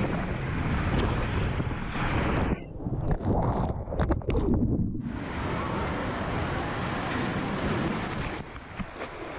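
Loud rushing of water through an enclosed tube water slide as the rider slides down. About two and a half seconds in, the sound turns muffled for a couple of seconds at the splashdown into the landing pool, then loud splashing and churning water follow.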